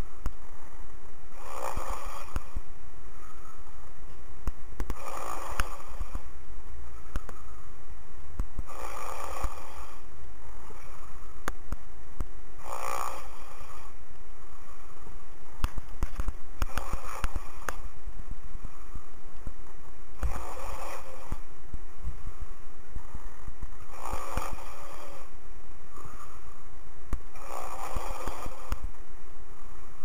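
A sleeping man snoring heard over a phone line: a snore about every four seconds, eight in all, over steady low line noise.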